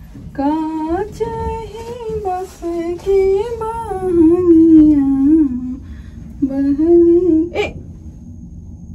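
A woman singing a Chhath folk song with no accompaniment, in long drawn-out notes with a wavering pitch. There is one long phrase, a pause, and a short second phrase that ends in a sharp click.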